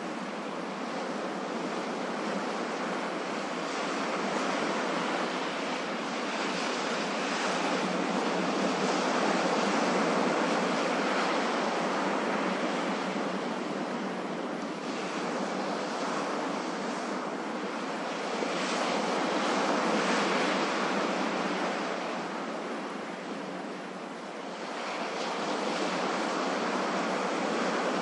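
Ocean surf: a steady rush of breaking and washing waves that swells and eases every several seconds, dipping briefly shortly before the end.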